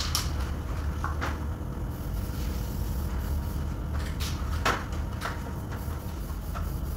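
A few short knocks and clicks as a worker steps up an aluminium stepladder, the loudest about two-thirds of the way through, over a steady low workshop hum.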